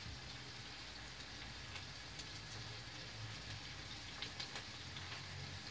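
Chopped peppers frying in oil in a pan: a faint, steady sizzle with scattered small pops.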